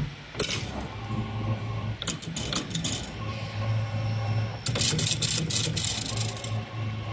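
CNC wire bending machine running: a steady hum from its drives, broken by repeated bursts of metallic rattling as it works the wire, the longest a little past the middle.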